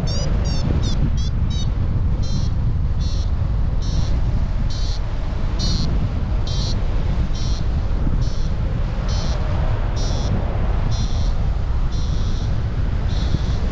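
Paragliding variometer beeping as the glider climbs in lift. The beeps come as rapid rising chirps near the start, then settle to about one and a half a second. Wind rushes on the microphone underneath.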